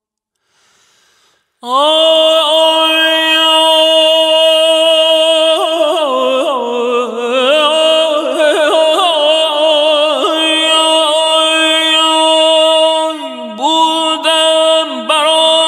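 A male voice sings a long, wordless Persian classical vocal passage in dastgah Homayun, starting after about a second and a half of silence. It holds one steady note, breaks into quick wavering ornamental turns in the middle, and slides down in short glides near the end.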